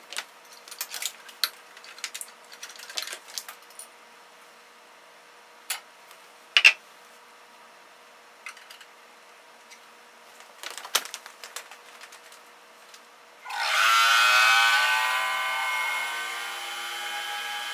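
Scattered clicks and knocks as a vacuum chamber is handled and closed. Then, about three quarters of the way through, a vacuum pump starts suddenly and runs steadily to pump the air out of the chamber. Its tones slide at first, then hold steady.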